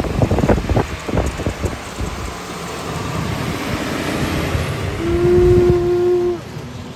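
Garbage truck at work: a quick run of cracks and crunches, then steady rumbling, with a single steady tone held for about a second and a half near the end.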